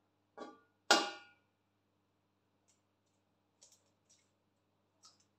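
Two knocks of kitchenware about half a second apart, the second loud with a short ring, followed by a few faint clicks.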